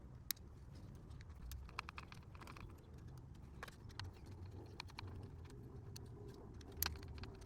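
Scattered light clicks and taps of a screwdriver and loose plastic parts at a car door's speaker mount as its screws are worked out, over a low steady hum. A sharper click comes about a third of a second in and another near the end.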